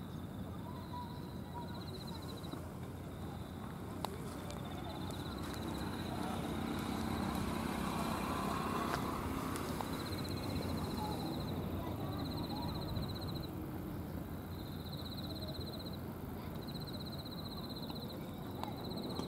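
Outdoor ambience: an insect trilling in short, high, repeated bursts, each about a second long, over a steady low rumble that swells a little mid-way.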